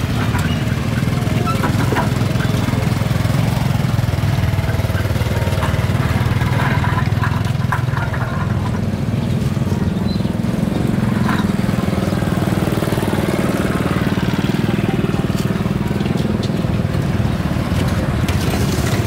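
Steady low rumble of a small engine running nearby, with a few light clicks and knocks from a knife on a wooden cutting board.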